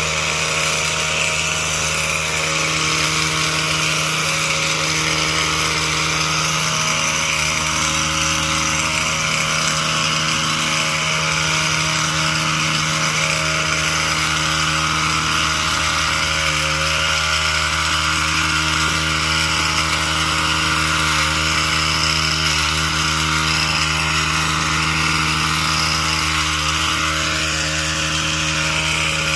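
Gas-powered string trimmer's small engine running steadily, with a brief rise in pitch near the end.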